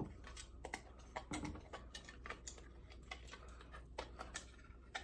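Faint, irregular light clicks and taps of small robot knee parts being handled and fitted together by hand.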